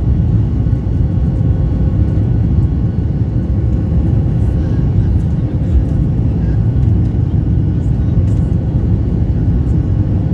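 Steady low rumble of a Boeing 737 MAX 9's CFM LEAP-1B jet engines and airflow heard inside the passenger cabin during the climb after takeoff, with faint steady tones above the rumble.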